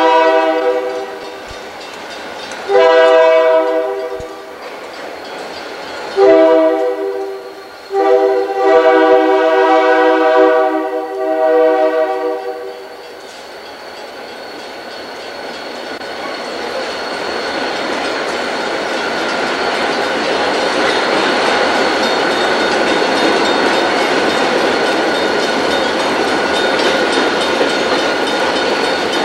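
Diesel locomotive horn on a CSX freight train sounding four blasts, the last held for about five seconds, in the pattern of a grade-crossing warning. The train then rolls past with a steady, slowly building rumble and clatter of wheels on rail.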